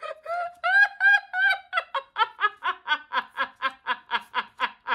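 A woman laughing: a few high, drawn-out giggles, then a long run of quick 'ha's, about five a second.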